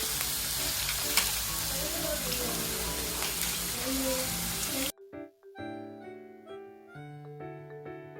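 Food sizzling and frying on a hot pan for about five seconds, with faint voices under it, then an abrupt cut to background piano music.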